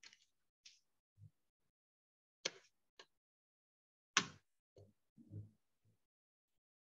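A few short, sharp clicks and some soft low knocks against near silence. The loudest click comes about four seconds in.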